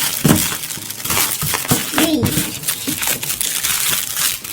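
Packaging rustling and crinkling as it is handled and opened by hand, with scattered sharp handling clicks.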